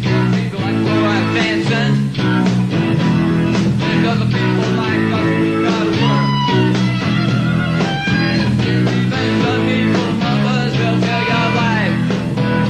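Live rock band playing an instrumental passage: electric guitars play driving chords over bass and drums, and a lead guitar bends notes above them.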